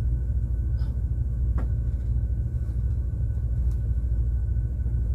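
Steady low rumble of ship's machinery carried through the cabin, with a faint steady whine above it and a couple of faint clicks about a second and a second and a half in.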